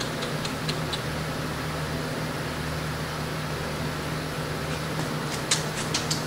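A steady low mechanical hum, like a running fan, with a few sharp clicks about a second in and a quick cluster of louder clicks near the end as the cordless drill is handled; the drill motor itself does not run.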